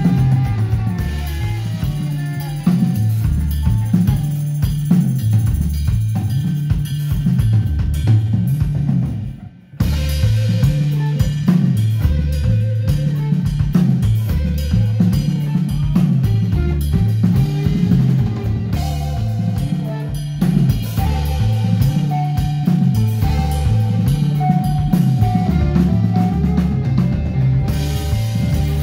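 Live rock band playing: two electric guitars, a bass guitar and a drum kit, with a repeating bass line and busy drumming. The band stops dead for an instant about nine and a half seconds in, then comes straight back in.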